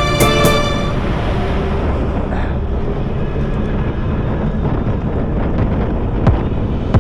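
Steady rumble of a moving vehicle with wind buffeting the microphone, and one sharp tick near the end; background music fades out about a second in.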